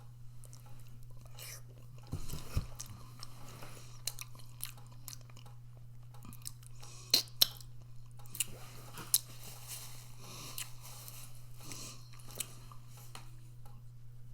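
A person chewing a mouthful of microwaved four-cheese ravioli, with small irregular wet mouth clicks and smacks and a few sharper clicks about seven and nine seconds in, over a steady low hum.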